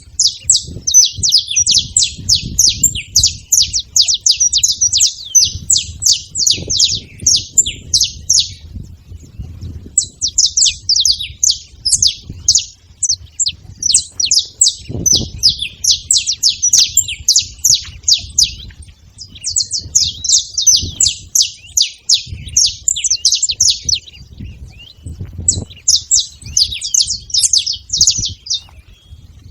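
Saffron finches chirping in long runs of rapid, high notes, four bursts of several seconds each with short pauses between them.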